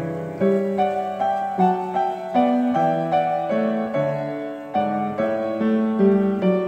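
Background piano music: a gentle melody of held notes over low chords, a new note about every half second.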